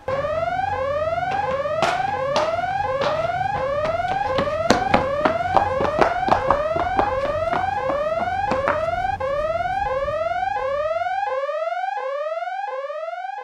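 Whooping alarm siren: a rising tone repeated about twice a second, with several sharp knocks in the middle; the siren fades toward the end.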